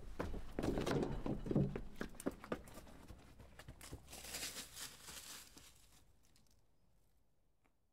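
Footsteps and rustling along a dirt hiking trail through grass, with a low wind rumble on the microphone. It starts abruptly, with a hissier stretch of rustling about four seconds in, and fades away over the last couple of seconds.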